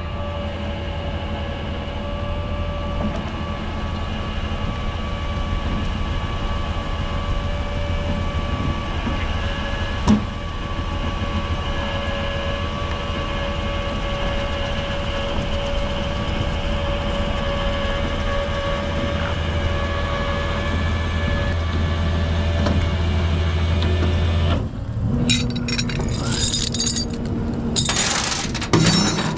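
Peterbilt 337 rollback tow truck running with its hydraulic winch drawing in cable, pulling a car up out of a ditch, a steady hum with a whine over it. The winch stops about 25 seconds in, and a few knocks and clatters follow.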